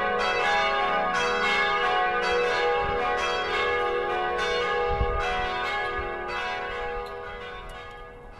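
Church bells ringing, many overlapping strikes with long ringing tones, fading away near the end.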